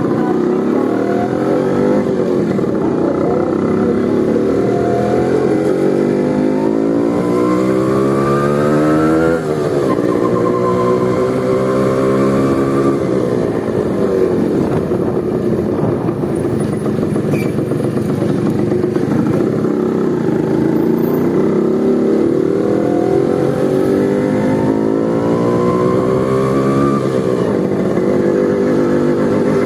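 Small motorcycle with the dB killer removed from its exhaust, running loud under hard acceleration. The engine note climbs steadily in pitch, drops sharply at a gear change about nine seconds in, climbs again, and shifts once more near the end.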